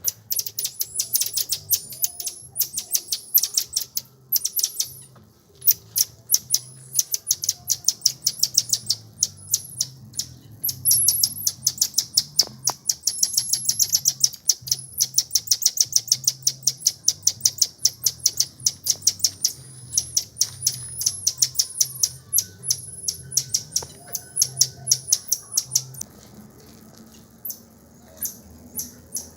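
Birds chirping in a fast, steady run of short, high-pitched calls, several a second, which thin out near the end.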